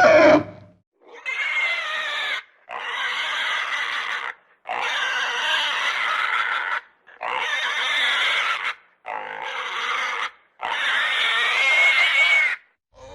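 Pig squealing: six loud, high squeals in a row, each one to two seconds long, with brief pauses between them.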